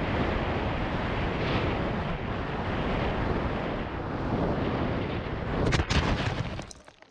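Steady wind rush over the onboard camera of a fast, low-flying FPV flying wing, with a cluster of sharp knocks near the end before the sound cuts off abruptly.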